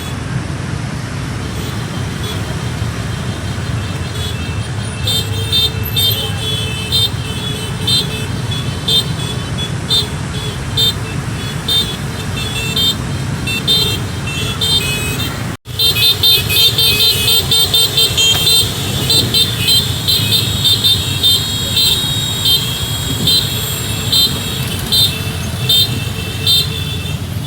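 Many vehicle horns honking in short repeated beeps over the steady engine and traffic noise of a road convoy; the honking grows denser after a brief break in the sound about halfway through.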